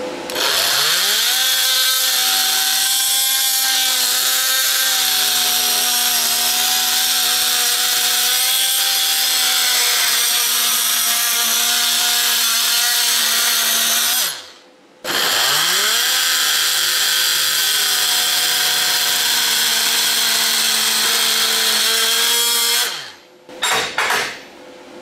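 Oscillating multi-tool running as its toothed blade cuts through aluminum tack welds: a steady buzzing whine that rises in pitch as it starts. It runs for about 14 seconds, stops for about a second, then runs again for about 8 seconds before winding down, with a brief restart near the end.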